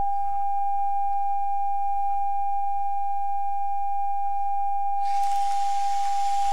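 A loudspeaker sealed in an evacuated plastic bag plays one steady, pure high tone. About five seconds in, a hiss of helium jetting into the bag through its tubing starts up alongside it.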